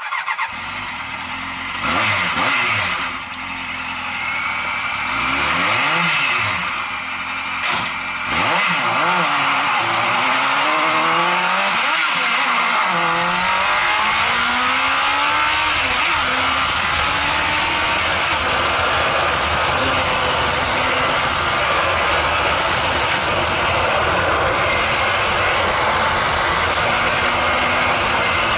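Honda CBR1000F inline-four motorcycle engine in an off-road buggy, revved in several short blips, then pulling away and accelerating up through the gears. It settles into steady running under load, with road and wind noise.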